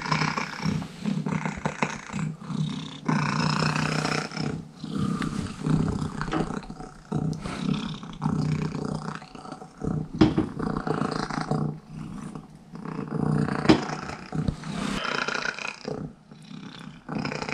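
A domestic cat meowing over and over in long, drawn-out calls, begging for more raw whitefish.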